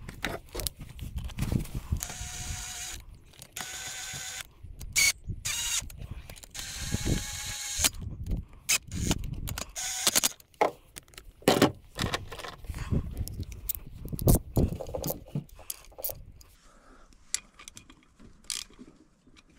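A cordless nut gun whirring in about four short bursts as it runs in the outboard's water pump housing bolts. It is followed by a run of ratchet clicks and knocks as the bolts are finished off by hand.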